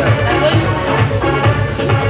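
Electronic dance music with a steady, fast bass beat.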